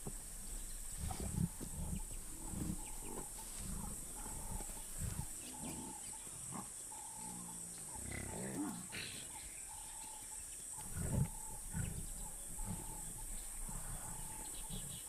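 Lions growling in short, low rumbles, loudest about a second in and again about eleven seconds in. A faint, higher call repeats about once a second behind them.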